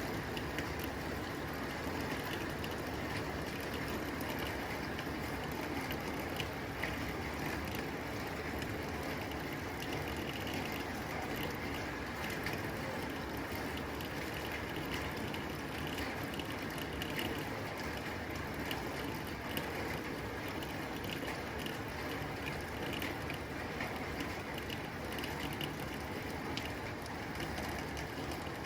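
Steady rain falling on a tin roof: a dense patter of drops striking the metal, with many small clicks over an even wash of rain.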